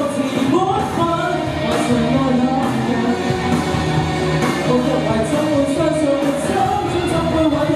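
A man singing a pop song over a recorded backing track, amplified in a large hall.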